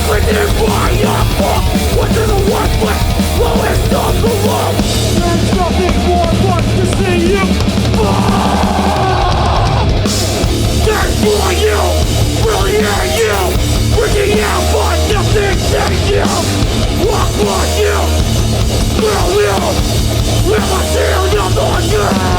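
Hardcore punk band playing live at full volume: heavy guitars with bass and drums.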